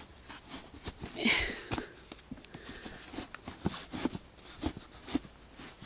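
Fabric canopy of a Fisher-Price infant car seat rustling as it is pulled up by hand, with scattered small clicks and knocks from its frame and one louder swish about a second in.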